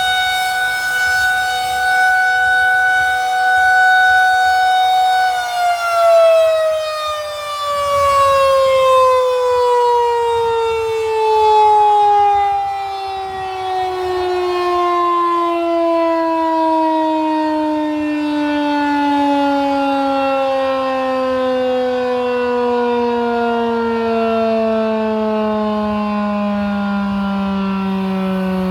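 Federal Signal 2001-130 rotating electromechanical tornado siren sounding a steady tone for about five seconds, then winding down after it is switched off, its pitch falling slowly and smoothly throughout the rest. Its loudness swells and fades as the horn rotates.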